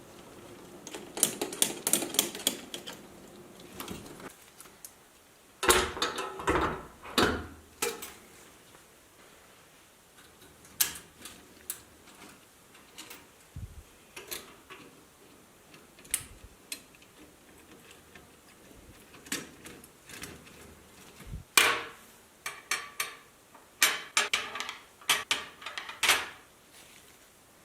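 Clicking and clattering from the mechanism of an antique calculator being worked by hand, in several short bursts with pauses between them.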